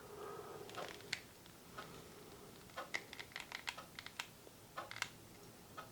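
Faint, sharp clicks of a handheld camera as shots are taken: a few single clicks, then a quick run of about a dozen clicks around the middle and a couple more near the end.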